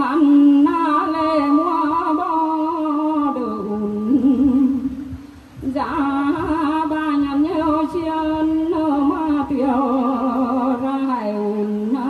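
A woman singing a Mường folk song unaccompanied into a microphone, in long wavering held notes, with a short breath pause about halfway before the next phrase.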